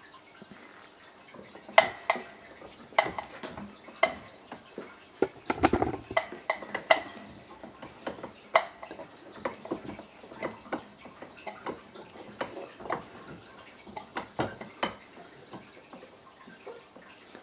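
Scattered clicks and light knocks from small metal bearings and a 3D-printed plastic block being handled and set into a steel bench vise. A few of the knocks ring briefly.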